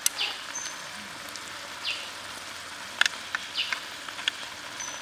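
Squid and vegetables in a pan over a wood fire, cooking with a steady sizzle and a few sharp pops, the loudest about three seconds in. A bird chirps briefly every second or two.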